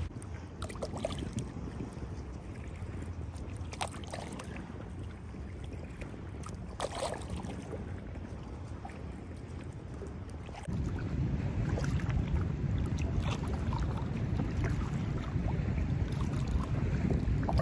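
Kayak paddle strokes dipping and splashing in the water, with wind on the microphone. The low wind rumble jumps louder about two-thirds of the way through.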